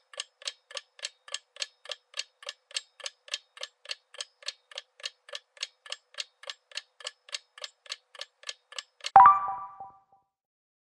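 Clock-style ticking sound effect of a quiz countdown timer, about three to four ticks a second, stopping about nine seconds in. A short ringing ding follows as time runs out and the answer is revealed.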